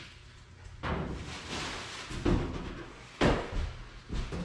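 Several knocks and thuds of cardboard-boxed body panels being handled and set down, the loudest about three seconds in.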